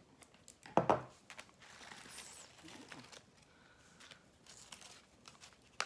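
Items being handled in a box: one sharp knock a little under a second in, then soft rustling and crinkling of packaging as a paper tea pouch is taken out.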